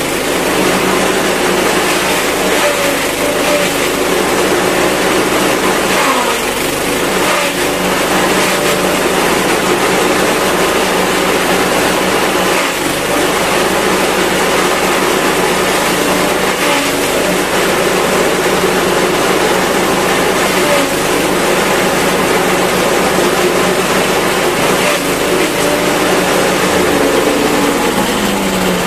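Small petrol engine running a BT5000 chaff-cutter, chopping stalks of odot (dwarf elephant) grass as they are fed in. The engine runs steadily, its pitch sagging briefly every few seconds as it takes the load, and it drops in pitch near the end.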